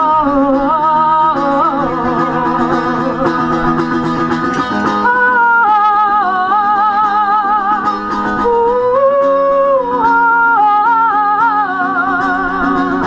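A woman singing long, wordless held notes with a strong vibrato over a strummed mandolin.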